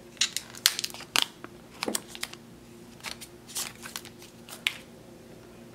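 Plastic watch packaging being handled: a scatter of short crinkles and clicks, over a faint steady hum.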